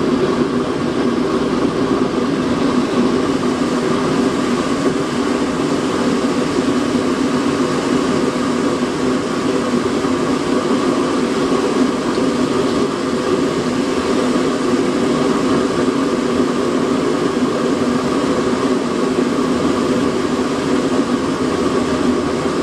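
Home-built waste oil burner, made from a fire extinguisher bottle, running hot and throttled up: the steady rush of the flame together with the hum of its small air blower, even and unbroken.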